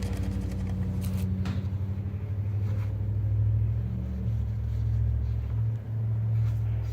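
A machine running with a steady, loud low hum.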